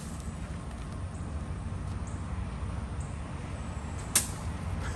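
A long wooden stick swung like a sword hits with one sharp crack about four seconds in, over a steady low background rumble.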